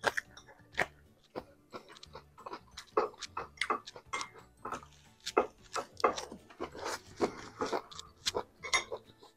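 Eating sounds: irregular crisp crunching bites and chewing of bánh xèo, a crispy rice-flour pancake wrapped in lettuce and herbs, close to the microphone.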